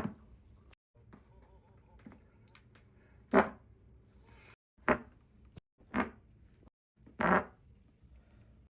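A string of about five short human farts, each a brief burst lasting well under a second, coming one to three seconds apart.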